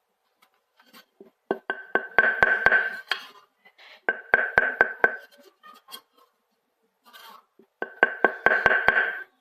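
Three runs of rapid sharp taps, about five a second, each with a steady ringing tone under it, from something hard struck repeatedly, likely the carbon table tennis blade being tapped or having a ball bounced on it.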